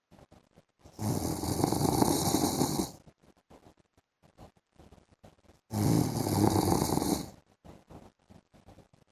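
A sleeping man snoring: two long snores of about two seconds each, a little under five seconds apart, with near quiet between them.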